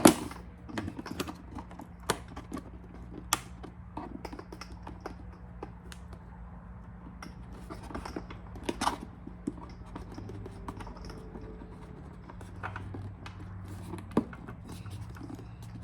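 Irregular plastic clicks and taps as an LED vent accent turn-signal piece is pressed and snapped into a motorcycle's fairing vent, the sharpest click right at the start, with a steady low hum underneath.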